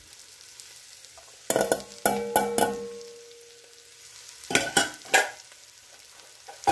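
A stainless steel bowl knocking several times against an enamelled cast iron Dutch oven as diced celery and carrots are emptied in, one knock leaving a short metallic ring. A second cluster of knocks comes about four and a half seconds in, over a faint sizzle of butter and vegetables in the hot pot.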